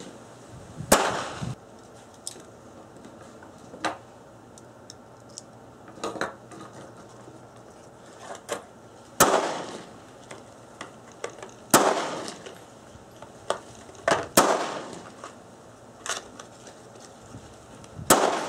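Handgun shots fired one at a time at irregular gaps of a few seconds, about five loud cracks in all, each trailing off in a short echo, with fainter sharp pops between them.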